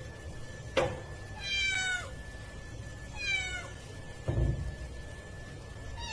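A cat meowing twice, high-pitched meows that fall in pitch, with a sharp click just before the first and a dull thump about four seconds in.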